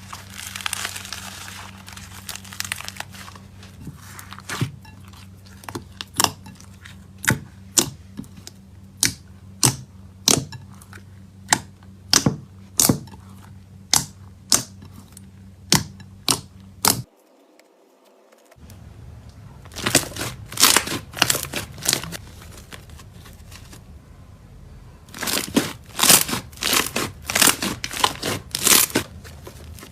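Slime being squeezed and poked by hand, giving sharp sticky pops and clicks. For a while they come about two a second; after a short gap in the audio about halfway through, they come in quicker bursts.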